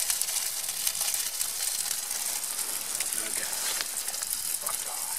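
Food sizzling in a small frying pan on a portable gas stove: a steady hiss with a fine crackle.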